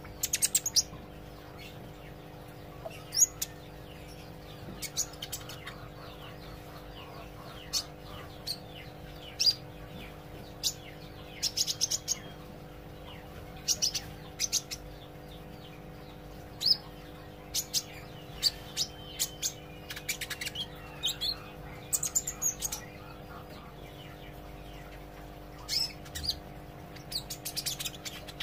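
A young sunbird chirping: short, sharp, high chirps come singly and in quick little clusters at irregular intervals, with pauses between. A steady low hum runs underneath.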